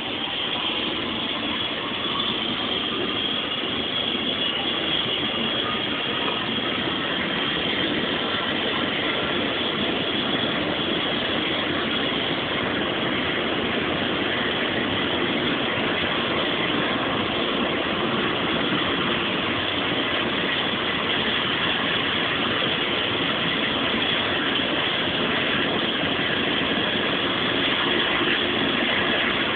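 Rescue helicopter running on the ground before takeoff, its turbine and rotor giving a steady, loud noise. A turbine whine rises slightly in the first few seconds.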